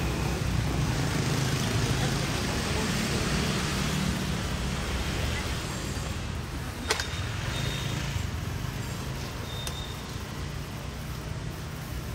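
Street traffic of motorbikes and cars running past: a steady rumble and road noise. A sharp click comes about seven seconds in, and two short high beeps follow.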